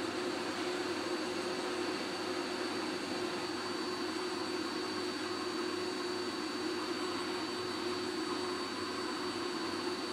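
Hot air rework station blowing a steady stream of hot air onto a BGA chip to melt the lead-free solder balls underneath: a constant rushing hiss with a faint high whine.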